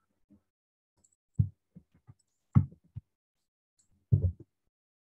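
Short, low thumps, four of them over a few seconds with faint ticks in between.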